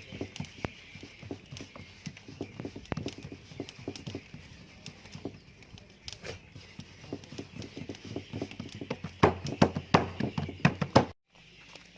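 Rapid, irregular taps and knocks, growing louder and thicker about nine seconds in, then stopping abruptly.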